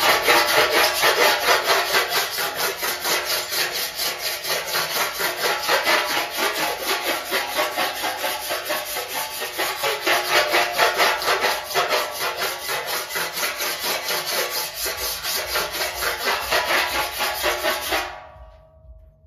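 An old flat file scraping rapidly back and forth across a classic Mini's steel front wing, a steady run of rasping strokes that stops near the end. The file lightly scuffs the pen-marked surface to show up the panel's high spots.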